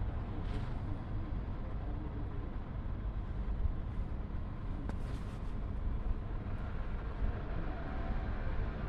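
Steady low rumble of a car running, with a light hiss above it.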